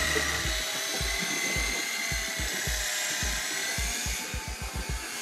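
Electric fishing reel's motor whining as it winches in line under the heavy load of a large squid. The whine wavers slightly in pitch and fades about four seconds in, with irregular low thuds underneath.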